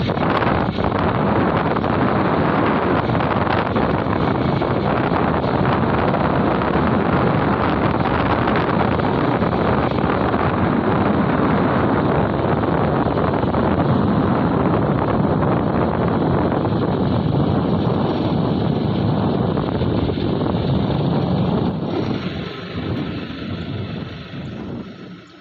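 Steady wind noise buffeting the microphone while travelling along a road, fading away over the last few seconds.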